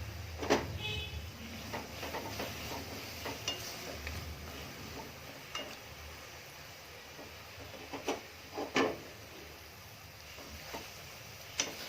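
A spoon stirring and scraping thick ginger-and-jaggery barfi mixture in a pan, with scattered sharp clinks against the pan; the loudest clink comes about half a second in and two more around eight to nine seconds in.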